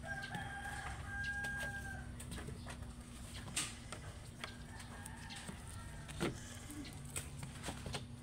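A rooster crowing, one long held call of about two seconds near the start, with a fainter crow around the middle. A few sharp clicks and knocks come between the calls.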